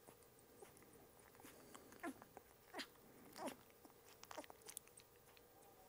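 Faint short whimpers and squeaks from a two-week-old Belgian Malinois puppy, about four of them starting about two seconds in, as it fusses at being dosed with oral dewormer from a syringe.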